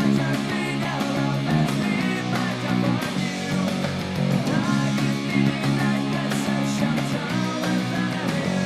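Peavey Millennium 4 four-string electric bass played fingerstyle, a steady line of low notes, over backing music with other instruments.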